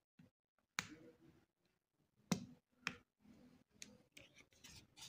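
Faint sharp clicks, four or so spaced about a second apart, with light rubbing between them: fingers pressing and prying at the plastic midframe of a Samsung Galaxy A20 (SM-A205) phone to unclip it from the body.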